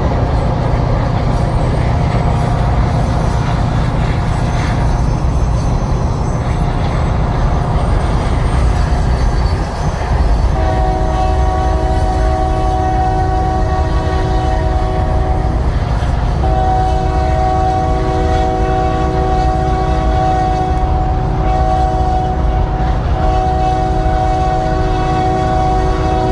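Locomotive air horn on a Union Pacific maintenance-of-way power unit sounding a multi-note chord from about ten seconds in, in long blasts with brief breaks, the warning pattern for a road grade crossing, over a steady low rumble of the moving train.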